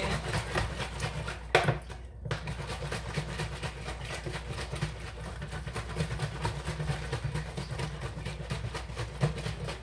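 A jug of drink being shaken hard, the liquid sloshing in a rapid, steady rhythm. A single sharp knock comes about one and a half seconds in, before the shaking settles into its rhythm.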